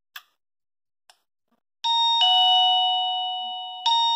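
A faint click, then about two seconds in a doorbell chime plays a two-note ding-dong, high note then lower, each note ringing on and slowly fading. A second ding-dong starts near the end.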